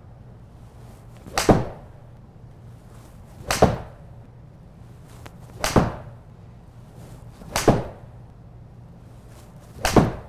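TaylorMade P790 iron with a regular 65 g graphite shaft striking golf balls: five sharp shots about two seconds apart, each with a smaller tap just before the main crack.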